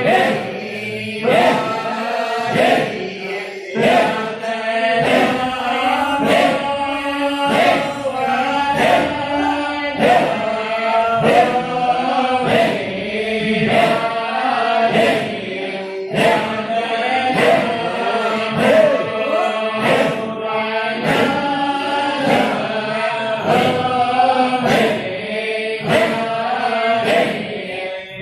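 Voices chanting a Shadhili Sufi nasheed in Arabic, with a steady percussive beat about twice a second.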